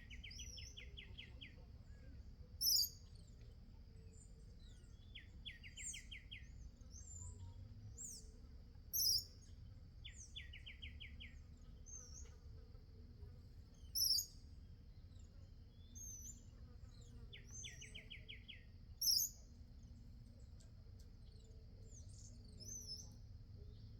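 Backyard songbirds calling: a loud, sharp, high call repeats about every five seconds, and a short, fast trill of about eight notes comes four times between them. A steady high insect drone runs underneath.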